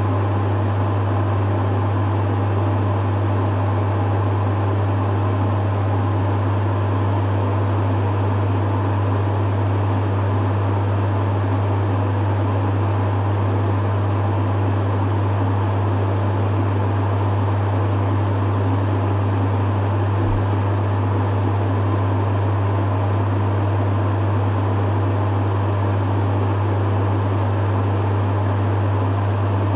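Dehumidifier running steadily: a strong low hum from its compressor under an even rush of fan noise, unchanging throughout.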